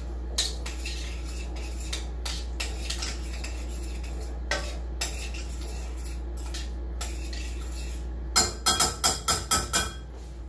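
A cooking utensil stirring Brussels sprouts in a pan on the stove, clicking and scraping against the pan. Near the end comes a quick run of about seven loud knocks. A steady low hum runs underneath.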